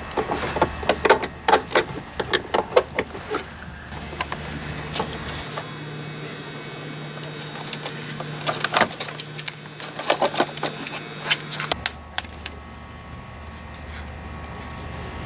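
Quick, irregular metallic clicks and clinks of hand tools working a bolt on a car battery hold-down, busiest in the first few seconds and again near the end, with a steady low hum in between.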